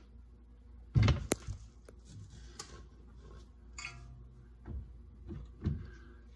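Handling noises of a grease gun with a needle tip being picked up and set against a torn CV joint boot: a knock about a second in, then a sharp click, followed by a brief scrape and a few lighter knocks.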